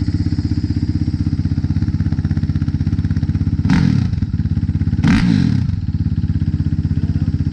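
Suzuki RMX450Z's single-cylinder four-stroke engine idling steadily, with two quick throttle blips about four and five seconds in. It is a test run after installing a JD Tuner fuel module, showing the bike starts and runs.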